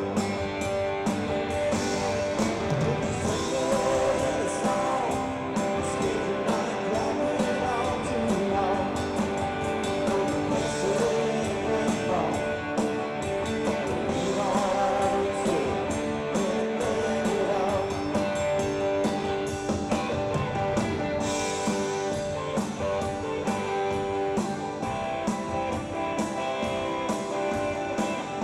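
Live rock band playing: electric guitars, bass and drums with a steady beat, and a lead line that wavers in pitch at times.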